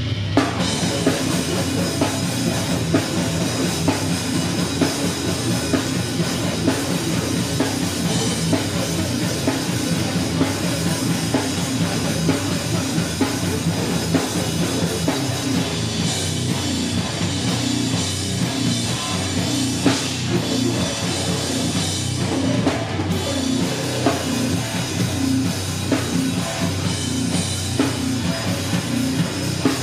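Live heavy rock band playing loud, the drum kit driving a steady beat.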